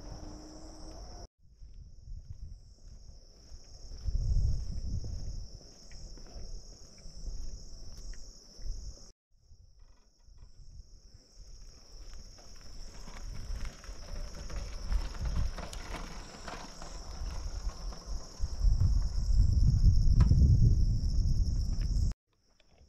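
Insects shrilling in a steady high drone with a pulsing edge, cut off briefly twice. Low rumbling on the microphone swells about four seconds in and again, louder, near the end.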